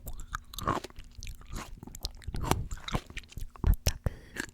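Close-miked mouth sounds of biting into and chewing juicy fresh fruit: irregular wet crunches and crackles, several sharp crisp ones among them.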